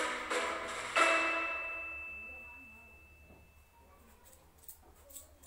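A glockenspiel-like chime tune of struck, bell-like notes. About a second in it ends on a louder note that rings on and fades away over the next few seconds. Two faint clicks follow near the end.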